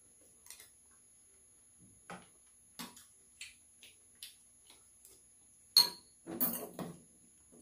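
Spoons and chopsticks clicking against bowls and a metal tray during a meal: scattered light clinks, one loud ringing clink nearly six seconds in, followed by a brief burst of scraping and rustling.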